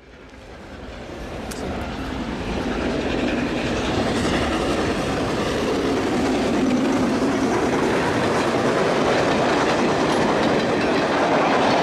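A steam-hauled Travelling Post Office train of Royal Mail vans running past at speed: a dense, steady noise of train running and wheel clatter on the rails, growing louder over the first few seconds and then holding steady.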